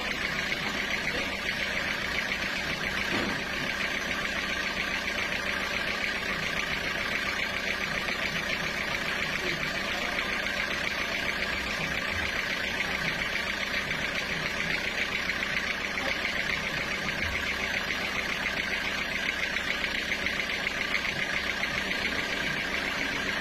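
Sawmill machinery running steadily, an even mechanical drone with no pauses or changes.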